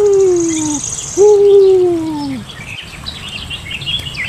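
Two long hoots about a second apart, each jumping up in pitch and then sliding slowly down, with small birds chirping and trilling in the background.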